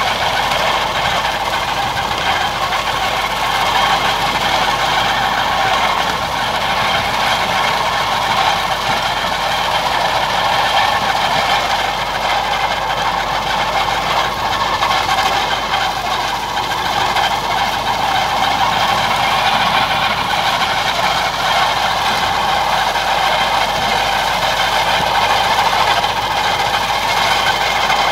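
Tractor engine running steadily under load while driving a manure spreader that flings solid manure out the back. The mechanical running sound is constant, with a thin steady whine.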